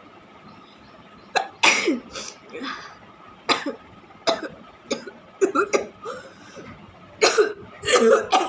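A person sneezing again and again, a string of about ten sharp, explosive bursts starting about a second and a half in, some coming in quick clusters.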